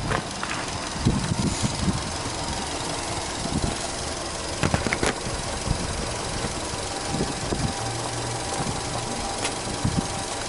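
Subaru Legacy 2.0GT's turbocharged EJ20 flat-four engine idling steadily, heard at the open engine bay.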